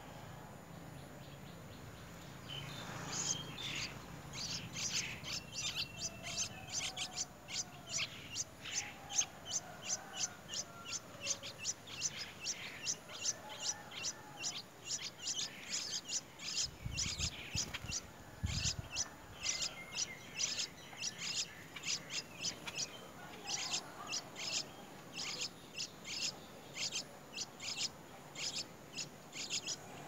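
Nestling songbirds begging for food: short, high chirps repeated about twice a second, starting a couple of seconds in and going on without a break.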